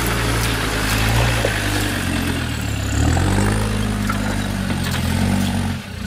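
Land Rover Discovery 2 engine running at low revs as it crawls over rock steps. Its note drops and then rises again about halfway through, and the sound dips briefly near the end.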